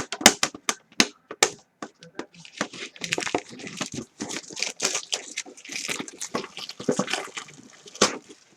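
Plastic shrink-wrap being torn and crinkled off a trading-card tin, with many sharp clicks and snaps of the packaging being handled. The crackling is densest in the second half.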